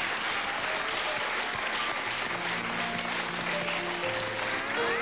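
Studio audience applauding over background music that plays a slow line of held notes.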